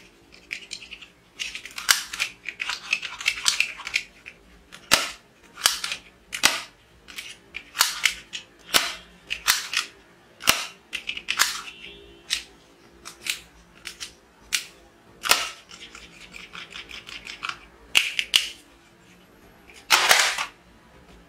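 Black plastic toy revolver snapping and clicking as its hammer and trigger are worked, about a click a second with a few quick runs of clicks. Near the end comes a louder clatter as the revolver is tossed onto a pile of plastic toy guns.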